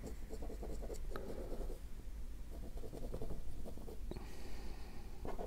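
Ballpoint pen scratching a run of quick short strokes on drawing paper, over a black tempera wash that is not yet dry.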